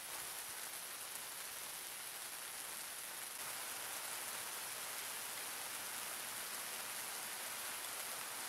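Steady hiss of rain falling, growing a little heavier about three and a half seconds in.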